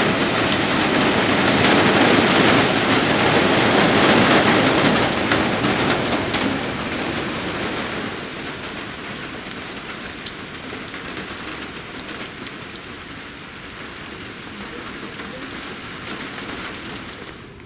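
A moderate rain shower falls steadily, loudest for the first several seconds, then eases off to a lighter patter with scattered single drops ticking.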